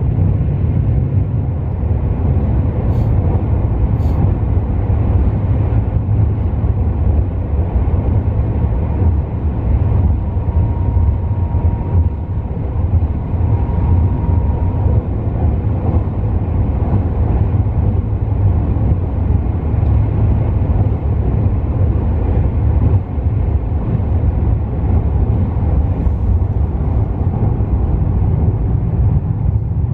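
Steady low rumble of the 285 series Sunrise sleeper train running across a steel truss railway bridge, heard from inside the car.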